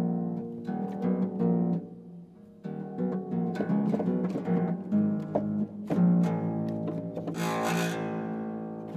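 Solo harp playing a contemporary piece: plucked notes and ringing chords, with a short lull about two seconds in. Near the end comes a bright, noisy sweep over the strings amid the ringing notes.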